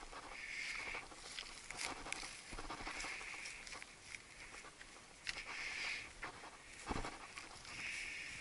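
A walker's footsteps on a steep grassy, heathery slope: a soft swish of boots brushing through vegetation about every two and a half seconds, with a few light knocks and a heavier thump about seven seconds in.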